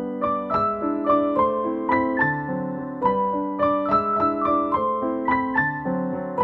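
Background piano music: a melody of struck notes, several a second, over lower sustained chords.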